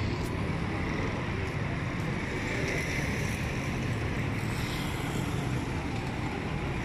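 Steady road traffic noise from passing cars, auto-rickshaws and motorcycles: an even rush of engines and tyres.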